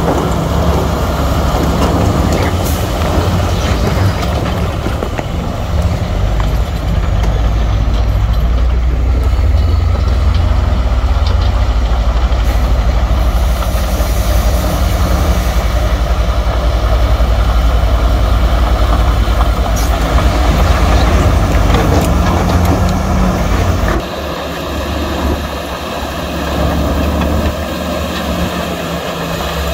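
Heavy diesel earthmoving machinery, bulldozers and dump trucks, running steadily with a deep engine note and a few sharp clanks. Near the end the deep note drops away suddenly and the sound turns quieter.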